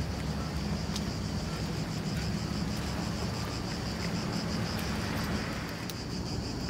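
Cicadas buzzing in a steady, finely pulsing high drone, over a low, even background rumble.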